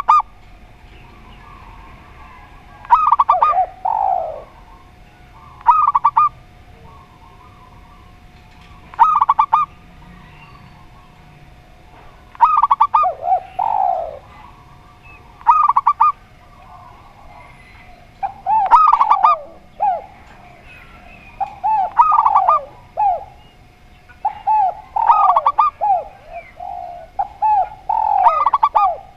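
Spotted dove and zebra dove cooing. Short, rapidly pulsed coo phrases come every two to three seconds, some ending in a falling note, and the calls grow denser and overlap near the end.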